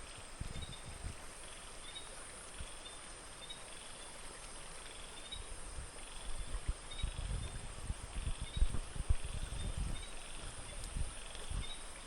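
Steady rush of flowing stream water, with a small animal's short high call repeating about once a second. Irregular low thumps come in the second half.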